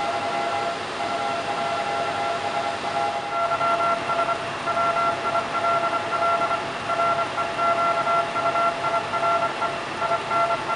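Several Morse code (CW) tones at different pitches sounding at once over a steady hiss, the highest one keyed on and off in clear dots and dashes.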